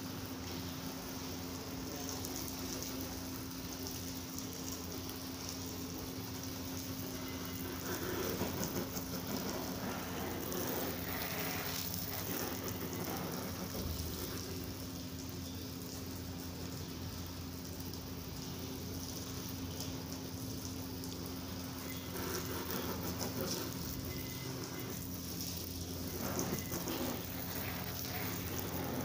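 Garden hose with a pistol-grip spray nozzle spraying water onto a car's windshield and plastic wiper cowl, a steady hiss and patter of water, louder at a few moments.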